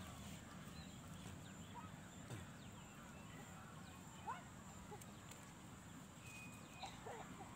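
Quiet outdoor ambience with a few faint, short bird calls, the clearest about four seconds in.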